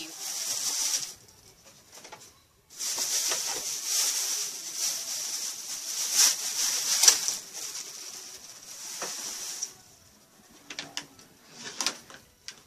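Plastic packaging rustling and crinkling as items are handled and dug out of a box, in two long spells, the second from about three seconds in to near ten seconds. A few light knocks and clicks follow near the end.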